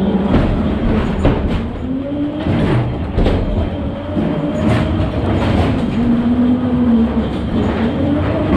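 Ghost train car rolling along its track, heard from aboard: a steady rumble of wheels with repeated knocks and clatters, and a few drawn-out wavering low tones over it.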